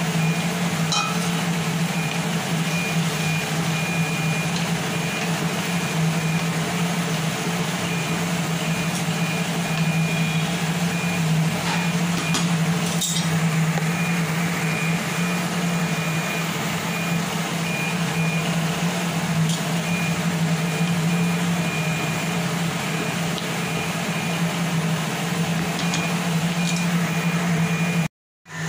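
Steady low hum with an even hiss over it as manchurian sauce bubbles in a wok on a gas stove, and a high-pitched beep sounding on and off. The sound cuts out for a moment near the end.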